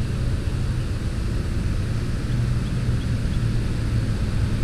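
A steady low mechanical hum over even outdoor background noise.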